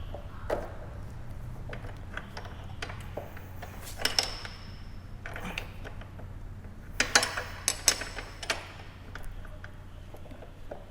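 A spanner tightens the rear axle nut of a motorcycle after the chain-slack adjustment, making scattered metal clicks and clinks. One clink rings briefly about four seconds in, and a quick run of clicks follows past the middle.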